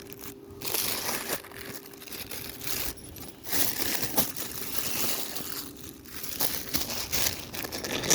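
Plastic packaging crinkling and rustling in irregular spells as small parts are handled and unwrapped from an air filter kit.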